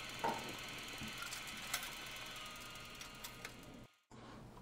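Small electric motor of a spin coater running steadily with a whine of several fixed tones and a few light clicks. It cuts off suddenly about four seconds in.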